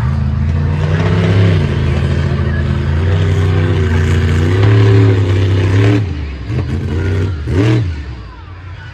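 Monster truck engine revving hard and holding high revs for about six seconds, its pitch dipping and rising twice, then dropping away, with one quick sharp rev up and back down near the end.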